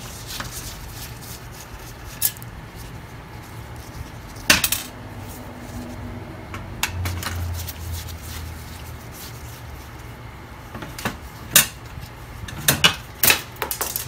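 Scattered sharp metallic clinks and taps of a screwdriver and screws against a laser printer's sheet-steel chassis as a side-plate screw is undone, with a cluster of clinks near the end, over a steady low hum.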